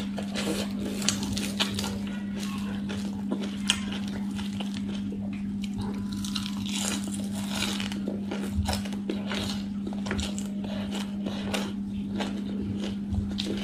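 Close-up eating sounds: a crispy fried chicken drumstick pulled apart by hand, then a mouthful of singju, a salad of shredded raw vegetables, chewed, with many small crackles and clicks. A steady hum runs underneath.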